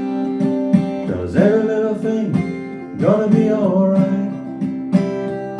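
Acoustic guitar strumming chords in a steady rhythm, with a voice singing long held notes over it, entering about a second in and again about three seconds in.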